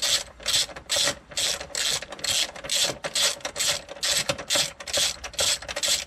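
Hand socket ratchet clicking in steady back-and-forth strokes, about two bursts of clicks a second, as it winds out a lower engine-mount bolt. The bolt is turning freely and coming out easily.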